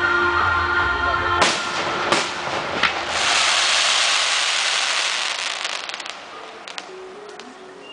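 Fireworks display: music at first, then about a second and a half in a sharp bang, followed by two more bangs less than a second apart. Then comes a dense, hissing crackle of bursting shells that fades away about six seconds in, with a few last pops near the end.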